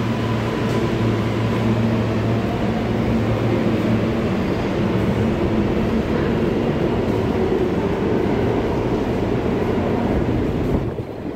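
Subway train rumbling through the station, heard from the stairs and passageway: a loud steady rumble with a low hum that drops off sharply near the end.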